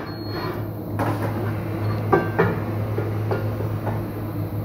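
A few scattered knocks and clatters as a new tyre on its wheel is handled on a tyre-shop bench, over a steady low workshop hum.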